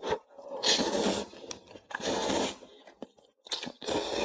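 Three long slurps of luosifen rice noodles drawn up from the soup, with small clicks between them.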